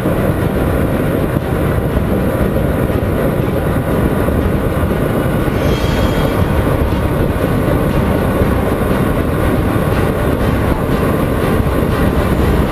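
Steady rush of wind buffeting the microphone of a camera mounted on a Honda CBR 125R at highway speed, with the bike's single-cylinder engine running beneath it.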